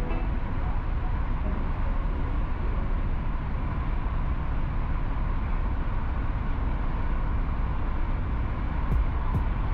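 Steady engine and road noise of a car driving, heavy in the low end and even in level. Near the end a regular light ticking comes in, about three ticks a second.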